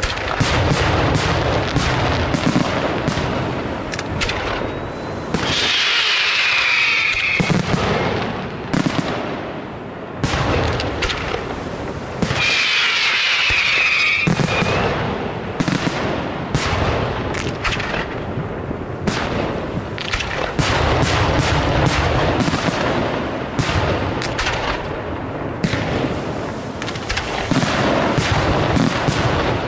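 Fireworks display: a rapid, continuous barrage of aerial shell bursts, bang after bang. Twice, for a second or two, the low booms drop away and a high crackling hiss takes over.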